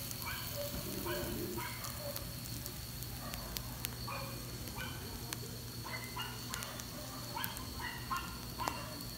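Tuna grilling over a charcoal fire, with scattered sharp crackles and pops over a steady hum. Many short calls carry in the background throughout.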